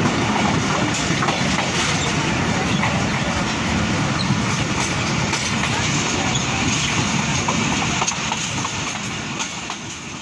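Moving Pakistan Railways passenger coach of the Badar Express, heard from its open window: a steady rumble and rattle of the train running along the track, with scattered clicks of the wheels. It fades away near the end.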